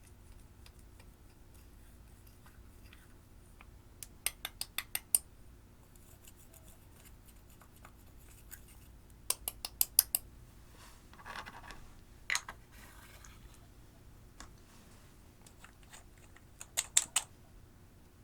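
Quick runs of sharp clicks and taps from small hard objects, three runs of four to six clicks each, with a short scraping sound in the middle.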